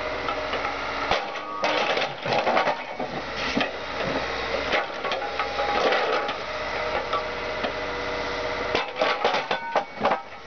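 Excavator crushing a Volkswagen Jetta Mk2 body: metal crunching and creaking with many sharp cracks over the excavator's steady engine hum, with a quick cluster of loud cracks near the end.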